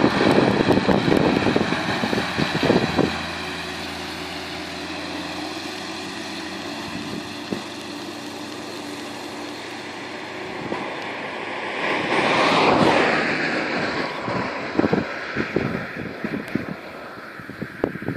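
John Deere 6920S tractor's diesel engine running steadily while it spreads fertilizer, with wind buffeting the microphone in gusts at the start and again through the second half.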